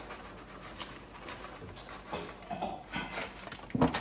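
Plastic bag of grated Parmesan rustling as cheese is shaken into a stainless steel pot, with light clicks and scrapes. A loud thump comes just before the end.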